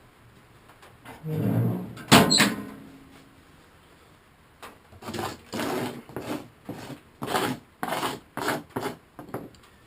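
A wood stove's metal door creaking and then banging shut, followed a couple of seconds later by a run of about ten short scraping strokes.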